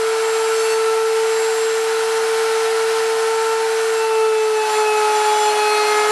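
Router mounted upside down under a homemade wooden router table, running with a steady high whine while its bit cuts into a wooden strip fed across the table. The pitch dips slightly about four seconds in as the cut loads the motor.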